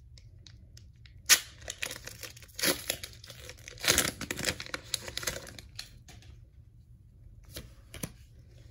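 A Pokémon card booster pack's foil wrapper being torn open and crinkled: a sharp crackle about a second in, a longer tear around four seconds in, and a few small crinkles near the end.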